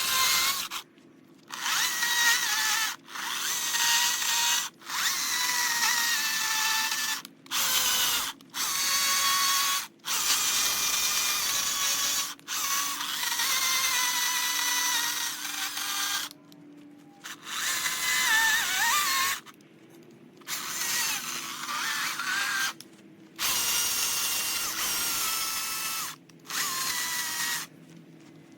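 Power carving tool cutting into eastern red cedar in repeated bursts of one to three seconds, with a wavering high whine. It stops abruptly between bursts.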